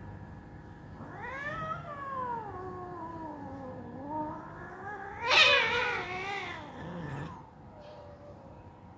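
Cats mating: long, drawn-out caterwauling yowls. The first starts about a second in, rising and then slowly sinking in pitch. The second, about five seconds in, is louder and harsher and falls away.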